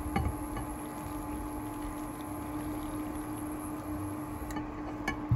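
Sparkling water poured from a ceramic jug into a glass bowl of flour while a wooden spoon stirs, over a steady low hum. A sharp knock near the end.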